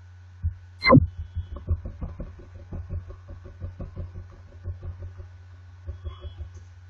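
Computer mouse scroll wheel clicking in a rapid run of small ticks as a document is scrolled, over a steady low electrical hum. A single sharper, louder click comes about a second in.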